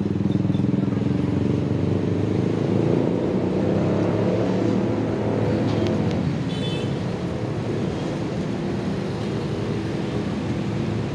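Diesel engine of a slowly shunting train running steadily, a low even drone that grows slowly fainter as the train moves away.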